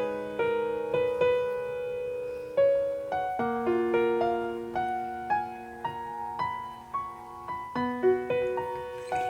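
Background music: a slow, gentle solo piano piece, single notes and chords struck and left to ring and fade.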